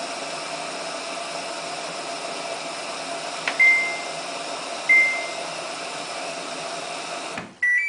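Samsung WF8804RPA washing machine in its service test mode: a steady mechanical hum with two single control-panel beeps in the middle. Near the end the hum cuts off and the machine plays a quick run of beeps at several pitches.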